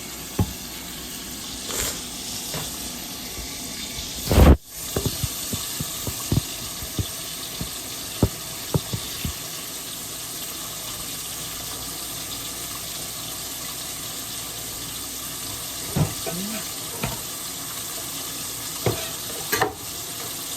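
Steady sizzling of food frying, with scattered clicks and knocks of kitchen utensils and one loud thump about four and a half seconds in.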